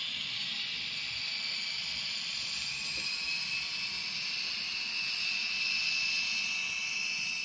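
Sound-equipped N scale GP40 model diesel locomotive running, its onboard speaker playing a thin, hissy diesel engine sound with a steady high whine.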